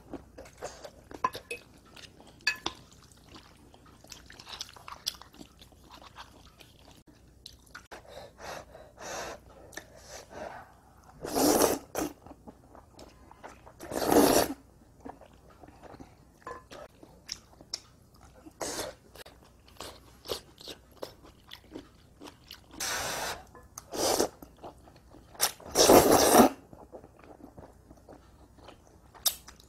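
A person eating cream pasta: soft chewing and small mouth clicks, broken by about five loud slurps of noodles, each half a second to a second long, the loudest near the end.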